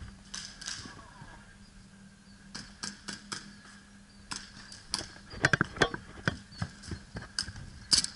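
Scattered airsoft fire: single sharp snaps at irregular intervals, with a louder cluster of several about halfway through, over a faint steady hum.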